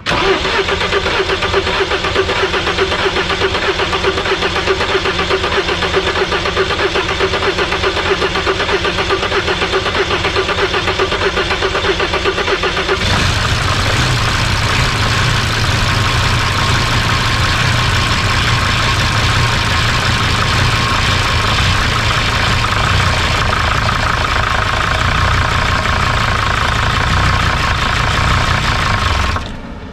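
A freshly swapped Mercedes five-cylinder common-rail diesel (OM612 block with an OM647 head) on its first start. The starter cranks steadily for about 13 seconds before the engine catches and runs with a diesel clatter, then it stalls suddenly near the end. A 'maximum rail pressure exceeded' code is logged, which the owner isn't sure caused the stall.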